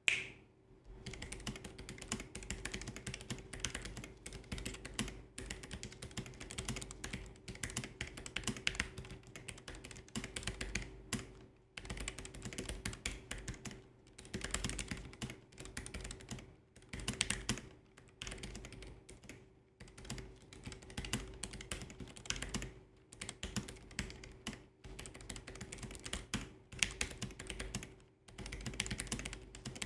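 Continuous typing on a low-profile mechanical keyboard, a fast irregular clatter of keystrokes with brief pauses between bursts, over a faint steady hum.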